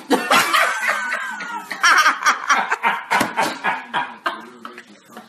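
A man laughing hard in quick bursts, loudest about two seconds in and easing off toward the end.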